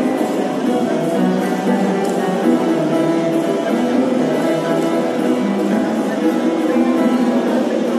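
Live music from the choir's accompanying ensemble, with a plucked string instrument prominent, playing at an even level throughout.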